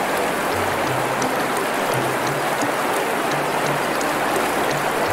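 Steady rush of flowing water, with soft background music playing low notes underneath.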